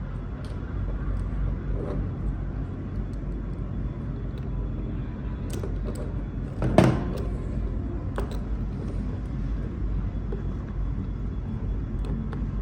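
Steady low rumble of a running vehicle engine, with scattered small clicks and one sharp knock about seven seconds in.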